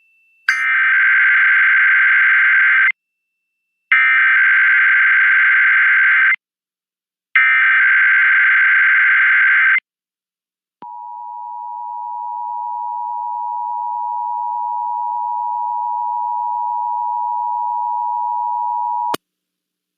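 Emergency Alert System tones: three bursts of SAME header data, a harsh warbling digital screech about two and a half seconds each with a second's pause between. About eleven seconds in, the EAS attention signal starts: a steady two-tone hum that swells slightly at first, runs about eight seconds and cuts off sharply.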